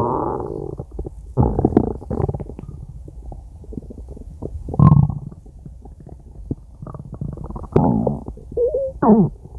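A person's stomach growling: irregular gurgles and rumbles with several louder surges, and a squeaky gurgle sliding up and down in pitch near the end.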